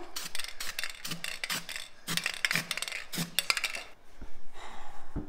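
Aerosol spray paint can being shaken, the mixing ball inside rattling in quick bursts of sharp metallic clicks about twice a second. The rattling stops about four seconds in, and a single soft thump follows near the end.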